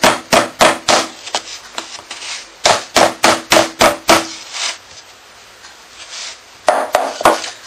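Wooden rolling pin beating a block of folded puff pastry dough on a wooden worktop: quick runs of dull strikes, about three a second, with a quieter stretch in the middle and a few more strikes near the end. The beating flattens and compacts the dough after its four-fold turn.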